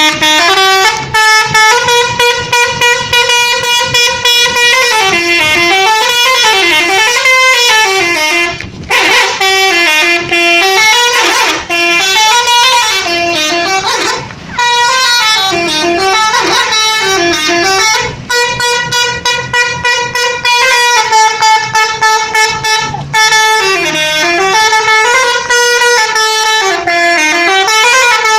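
Antavaya bus's telolet horn, a multi-tone musical horn, playing a repeating tune: long held notes alternating with warbling passages that dip down and swing back up, with a few brief breaks between phrases. Loud throughout.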